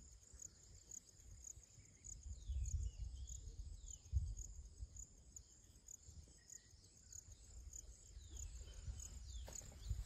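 Faint, steady insect chirring: a continuous high-pitched pulsing trill, with a few faint falling chirps over it and occasional low rumbles on the microphone.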